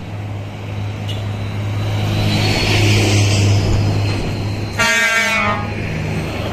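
A bus's engine runs with a steady low hum and a hiss that swells in the middle, then its horn sounds one short blast about five seconds in.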